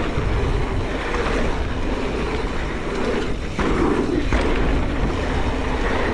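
Mountain bike descending a dirt trail at speed: wind rushing over the microphone over a steady rumble of the tyres rolling on the ground, in uneven surges.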